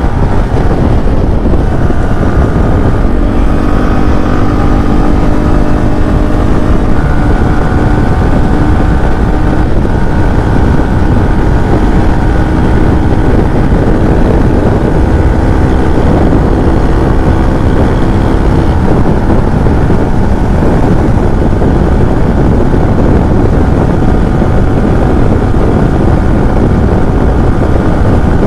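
Yamaha R15 V4's 155 cc single-cylinder engine running at a steady high-speed cruise, around 100 to 110 km/h. Its steady hum is heard under heavy wind rush on the microphone.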